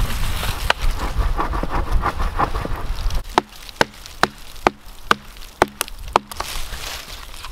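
Camp axe chopping into dead wood: a run of sharp, evenly spaced strikes, about two a second, each with a short low thud, starting about three seconds in after a stretch of rustling and scraping in brush.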